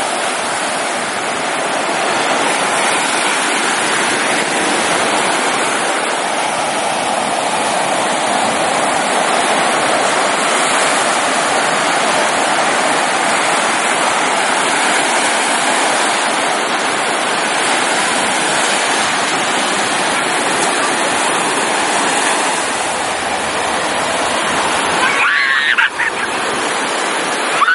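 Steady rush of flowing water, an even hiss that dips briefly near the end.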